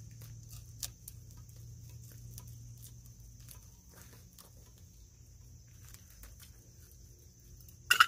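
Knife blade scraping and picking hardened pine pitch off a pine log: scattered small scrapes and clicks, with one sharper click near the end. Crickets chirp steadily throughout.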